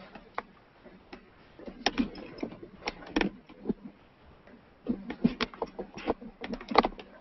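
A run of irregular clicks and knocks, clustered about two, three and five to seven seconds in: handling noise as a computer with its webcam is carried along by someone walking through rooms.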